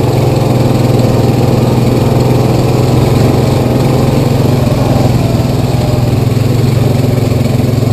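Single-cylinder ATV engine running steadily under light throttle while the quad rides along a dirt trail, heard up close from the front rack.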